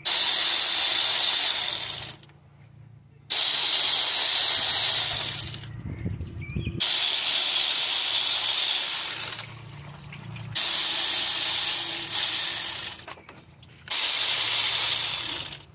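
Air ratchet run in five hissing bursts of about two to three seconds each with short pauses between, spinning out the five 10 mm bolts of a water pump.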